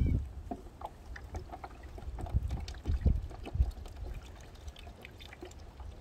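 Water splashing and dripping into a plastic basin as a mesh fish trap is shaken out over it and loaches drop into the water, with irregular rustles and clicks from the netting. There are a few louder splashes or knocks about two to three and a half seconds in.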